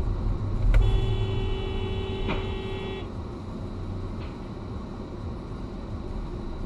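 Car horn sounding one steady note for about two seconds over the low rumble of a car driving, heard from inside the moving car.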